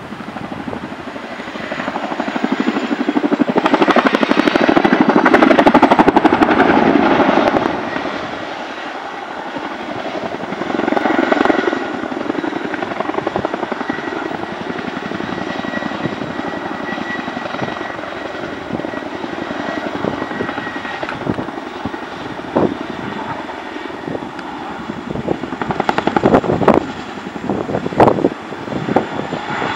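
Boeing CH-47 Chinook tandem-rotor helicopter flying past, its rotors thudding and its turbines running. The sound swells loudest a few seconds in, then eases off. A run of sharp cracks comes near the end.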